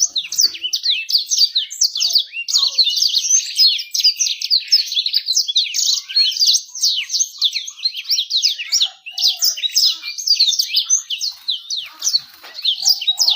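Domestic canary singing a fast, unbroken song of rapid chirps and trills, used as a lure song to get other birds singing and to attract hens.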